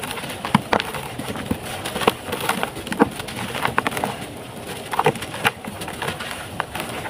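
Dry, dusty sand-cement chunks crushed and crumbled by hand: irregular crisp crackles and crunches, with scattered sharper snaps as pieces break.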